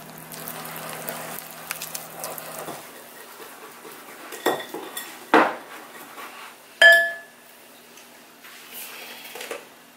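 Wire whisk scraping and beating a thick flour-and-plant-milk batter in a glass mixing bowl, continuous for about the first three seconds. Then a few sharp knocks and clinks of utensils against the glass bowl follow, the loudest near seven seconds in with a short ring.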